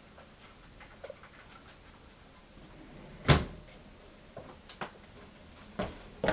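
A single sharp clunk about three seconds in, then a few fainter knocks and clicks, heard over an otherwise quiet, waiting phone line.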